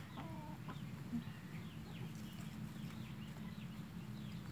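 A chicken clucking once, briefly, just after the start, with faint high chirps that fall in pitch repeating throughout, over a steady low hum.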